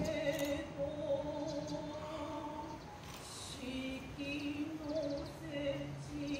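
Noh vocal: a voice holding long, wavering sustained notes in the chanted Noh style, with a sharp hand-drum strike near the start and another about three seconds in.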